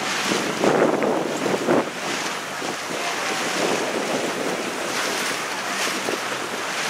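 Wind buffeting the microphone over choppy water, with waves splashing. The gusts are strongest in the first two seconds, then settle into a steady rush.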